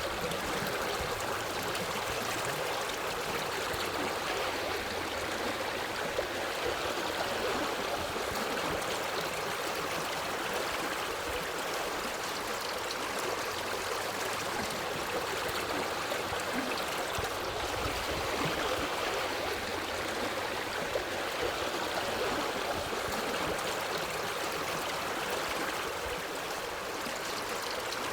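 A forest stream flowing over rocks, a steady rushing and babbling of water with no change in level.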